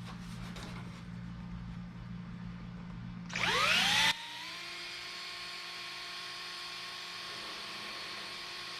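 An electric power tool's motor spins up with a quickly rising whine about three seconds in, loud for under a second, then cuts off abruptly. After that a steady, even motor whine carries on. Before it there is a steady low hum.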